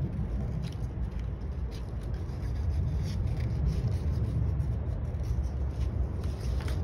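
Scratchy rubbing strokes of a drawing or art tool on paper, coming in short irregular bursts over a steady low rumble.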